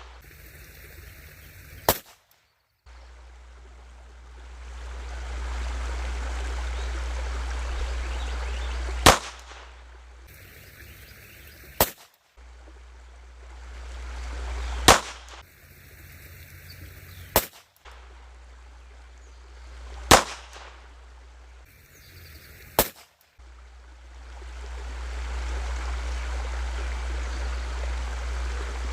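Seven single .22 LR pistol shots from a Glock with an Advantage Arms .22 conversion, fired slowly at uneven gaps of about 3 to 7 seconds, with a steady rushing noise between them.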